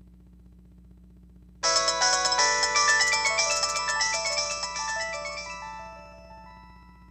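Sanyo VI-2300 flip phone playing a short, bright multi-note chime tune through its small speaker. It starts suddenly about a second and a half in and fades out over several seconds.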